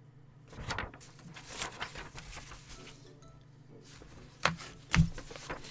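A sheet of printer paper rustling as it is handled and set down, then two sharp knocks about four and a half and five seconds in, the second louder.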